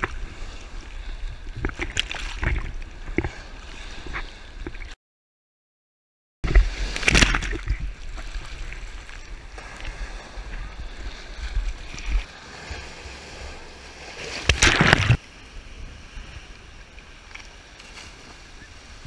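Rough sea sloshing and foaming around a GoPro held at the water's surface, with breaking waves splashing over it, loudest about seven seconds in and again around fifteen seconds. The sound drops out completely for about a second and a half around five seconds in.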